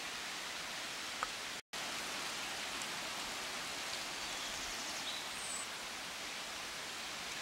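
Steady, even hiss of outdoor noise, like light rain or running water, with a sudden brief dropout to silence about a second and a half in.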